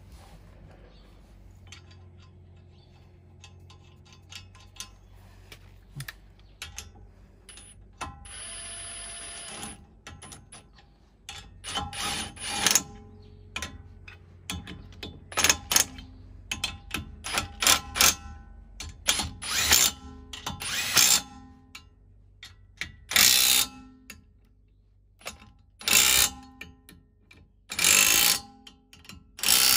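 A HiKOKI 36V cordless impact wrench hammering wheel nuts down onto the hub studs to hold a wheel spacer, run in about a dozen short bursts with pauses between. Before the first burst, about eleven seconds in, there are only a few light metal clinks of nuts being handled.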